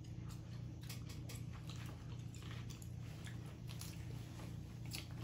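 Quiet eating sounds: chewing and small scattered clicks as boiled crawfish are peeled and eaten, over a steady low hum.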